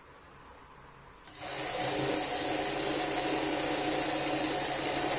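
Industrial sewing machine starting about a second in and then running steadily at speed, stitching along a folded fabric strip.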